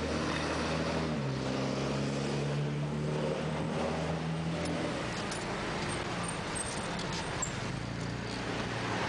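Motor vehicle ride through traffic: an engine runs with a steady hum that rises slightly in pitch and then holds, over road noise. About halfway through the engine tone fades out, leaving only road and wind noise.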